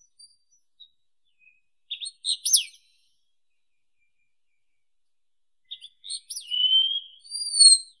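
Wallcreeper singing: a few faint high notes, then a quick cluster of thin, high notes about two seconds in, and after a pause a second phrase near the end that closes with longer drawn-out whistles, the last rising and then falling.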